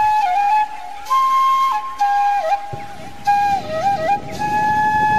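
Central Javanese suling (bamboo flute) music: a melody of long held notes broken by quick ornamental dips between them.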